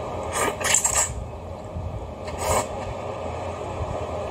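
Thick udon noodles being slurped into the mouth, two short slurps, one about half a second in and another a little past halfway, over a steady low hum.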